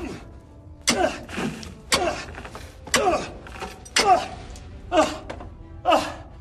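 A long-handled digging tool strikes the floor of a well six times, about once a second, as a man digs it out by hand. Each blow comes with a short, falling grunt of effort.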